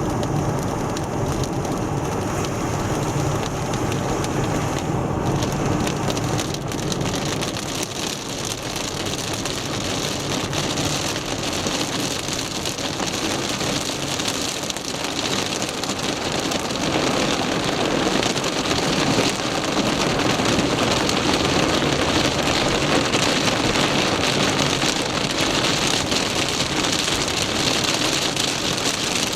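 Torrential rain pelting a moving car, heard from inside the cabin, with tyres hissing on the flooded road and the engine running low underneath; the downpour grows a little heavier about halfway through.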